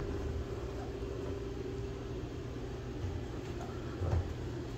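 Steady low hum with a faint held tone, and a soft low thump about four seconds in.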